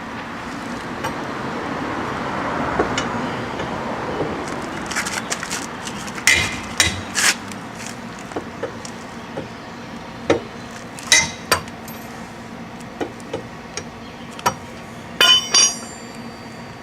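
Steel lug wrench clinking and knocking on the wheel's lug nuts as they are broken loose and turned off: a string of sharp metal clinks through the second half, the last couple ringing briefly.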